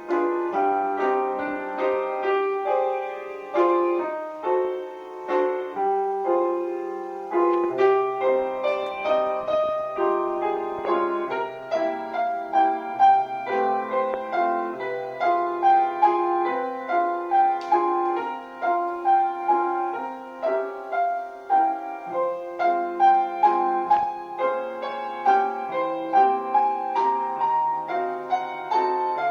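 Solo piano music playing a steady run of notes over a simple bass line, in the manner of a ballet class accompaniment.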